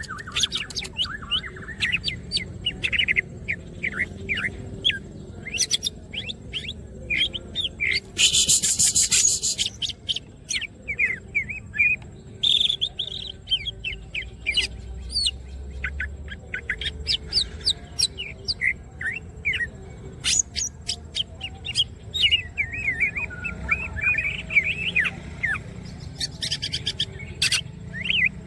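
Green leafbird (cucak ijo) in full song: a fast, continuous stream of varied chirps and whistles, broken by a harsh buzzy rattle about eight seconds in and shorter ones later.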